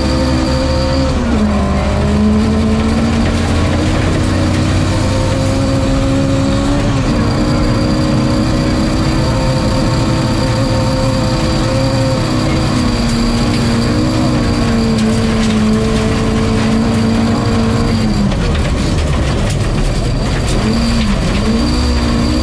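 Ford Escort MK2's Cosworth BDG four-cylinder rally engine, heard from inside the cabin, running at fairly steady revs over gravel road noise. The engine note dips briefly and recovers a few times, about a second in, around a third of the way through, and twice near the end.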